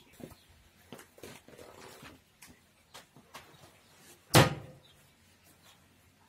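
A plastic bin lid shut with a single loud thump about four seconds in. Before it, light knocks and rustling of tissue paper being handled.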